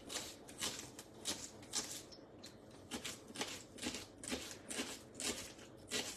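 Kitchen knife cutting shallots on a wooden chopping board, short regular strokes about two a second.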